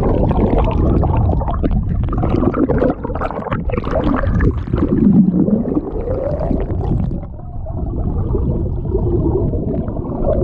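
Muffled river water gurgling and sloshing close around the microphone, with wavering low sweeps. It is consistent with a trout being released back into the fast-flowing river.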